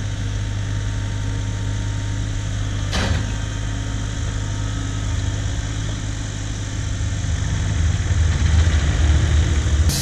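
An engine running steadily, with a sharp knock about three seconds in; its low rumble grows louder near the end.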